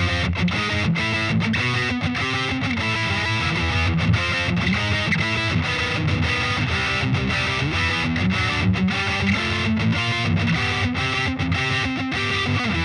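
Solar A1.7D LTD electric guitar through a Peavey Vypyr 60 W combo amp with distortion: fast picked riffing of many short, clipped notes.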